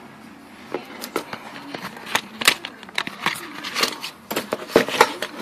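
Ration packets and plastic wrappers being handled: a steady run of crinkling and rustling with many small sharp clicks and taps.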